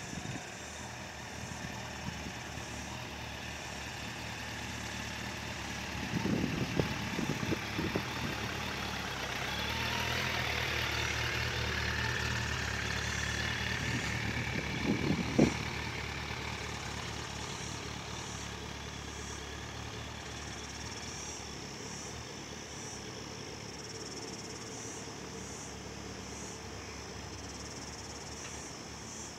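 Suzuki GSX1200 four-cylinder motorcycle engine running at low speed in slow, tight manoeuvres. It grows louder as the bike passes close by around the middle and fades as it rides away. A few low thumps hit the microphone.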